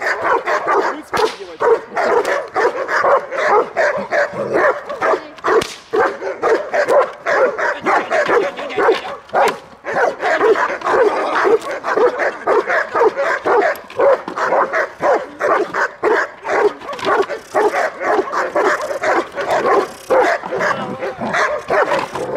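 Belgian Malinois barking in a rapid, unbroken string of several barks a second: a guard dog's aggressive protection barking at a decoy with a bite sleeve.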